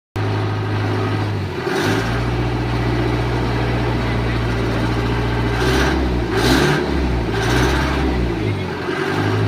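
An engine running steadily, its low hum dropping in pitch about two seconds in and rising back near the end, with four short hissing bursts over it.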